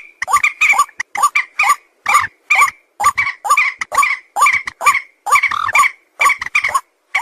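A rapid run of short, pitched animal calls, several a second, going on without a break.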